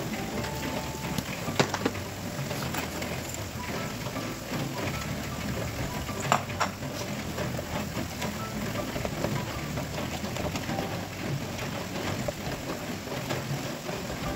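Bean sprouts sizzling in a nonstick wok as they are stir-fried and turned with a spatula. The spatula knocks sharply against the pan about a second and a half in, and louder around six seconds in.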